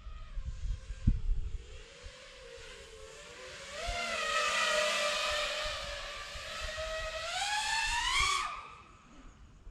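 FPV quadcopter (Nazgul Evoque F6D) motors and propellers whining. The pitch swings up and down with the throttle, loudest from about four seconds in, then rises to a high peak and falls away sharply near the end.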